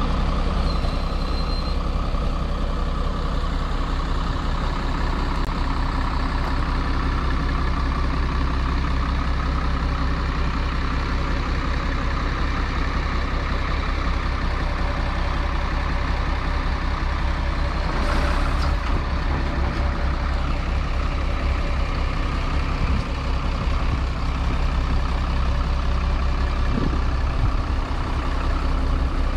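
Iveco Eurocargo 90E18 truck's diesel engine idling steadily, with a brief hiss about eighteen seconds in.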